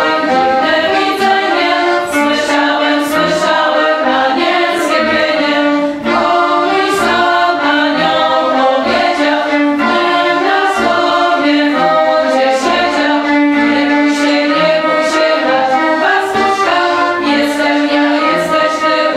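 A choir singing unaccompanied, with long held notes.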